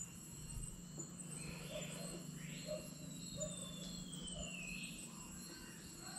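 Faint, steady high-pitched insect chorus in tropical forest. About halfway through, a long whistle falls slowly in pitch over a couple of seconds.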